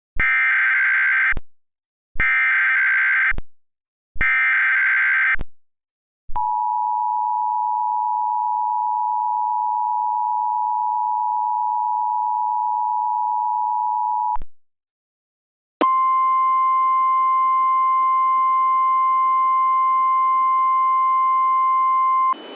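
Emergency Alert System tones: three short bursts of SAME header data, each about a second long, then the two-tone EAS attention signal, held steady for about eight seconds. After a brief gap comes a single steady NOAA Weather Radio warning alarm tone with a faint hiss under it, lasting about six seconds.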